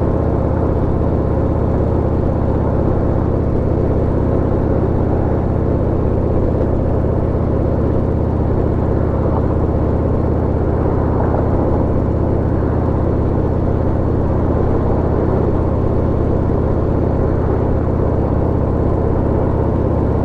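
Harley-Davidson Road Glide ST's V-twin engine running at a steady cruise while riding, a constant low drone with road and wind noise.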